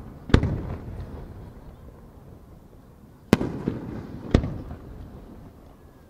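Aerial firework shells bursting overhead: a sharp bang about a third of a second in, then two more about three and four seconds in, each trailing off in a fading rumble.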